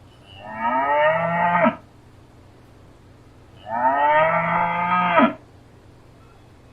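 A cow mooing twice, two long calls about two seconds apart.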